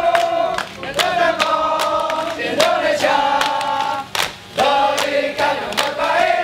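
A group of men and women singing a chant together in long held notes, with sharp percussive hits between the phrases. The singing breaks off briefly about four seconds in.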